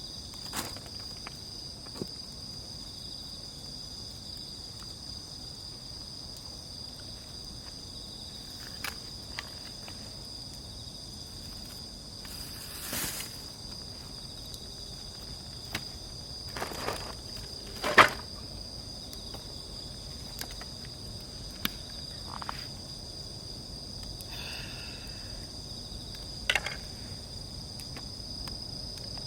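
Steady high chirring of insects, with a dozen or so scattered sharp clicks and snaps; the loudest snap comes about eighteen seconds in.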